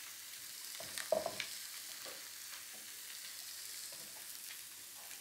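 Duck skin sizzling gently in a frying pan as its fat renders out, with a few knife taps on a wooden chopping board, a cluster of them about a second in.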